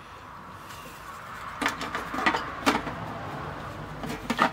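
Light knocks and taps from hands handling the sheet-metal case of a CD changer on a workbench, a handful of them starting about a second and a half in, over a faint steady room hum.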